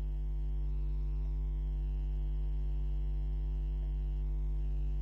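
Steady low electrical mains hum with a series of evenly spaced overtones.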